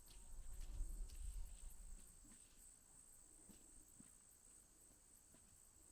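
Faint, steady high-pitched insect chirring, with a low rumble during the first two seconds.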